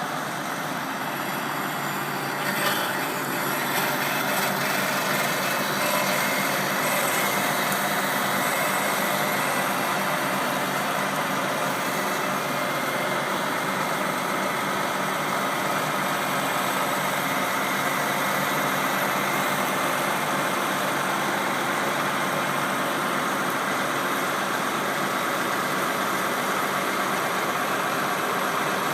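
New Holland TV-140 tractor's diesel engine running steadily, with a brief knock about two and a half seconds in.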